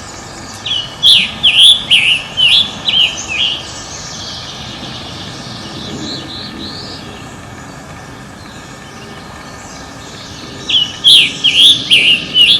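A small songbird singing two loud phrases of quick, down-slurred chirps, each of about seven or eight notes, with a long pause between them, over a steady background hum.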